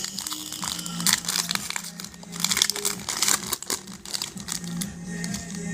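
Plastic trading-card pack wrappers crinkling and tearing as packs are ripped open by hand, a dense crackle that is busiest in the middle.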